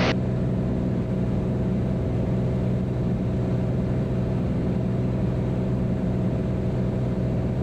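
Beechcraft Bonanza's piston engine and propeller droning steadily on short final with the gear down, heard inside the cockpit.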